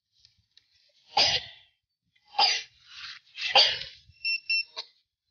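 Three short, harsh bursts about a second apart, then a few quick high-pitched beeps from a metal detector near the end.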